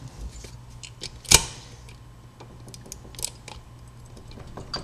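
Sparse metal clicks and taps as a key blank clamped in vise grips is handled at an old wafer padlock, with one louder clack about a second in and a smaller one about three seconds in.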